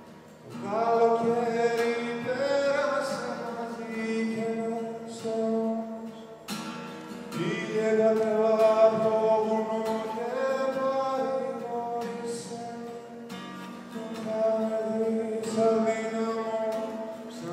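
Live male voice singing long, held phrases at a microphone over an acoustic guitar. The phrases start about half a second in, again around seven seconds and again around fourteen seconds.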